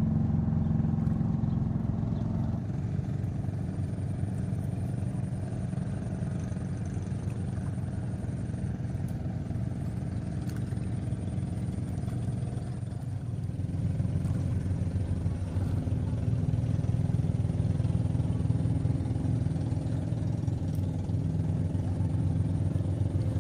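A small engine running steadily, its hum getting a little louder about fourteen seconds in.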